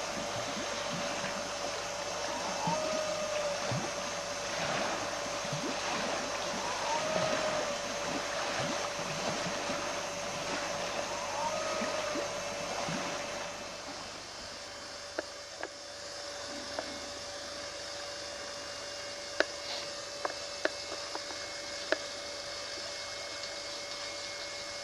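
Wind on the microphone by the lakeshore, with a faint chirp repeating every few seconds. About halfway through the wind drops to a quieter steady hiss, broken by several sharp clicks.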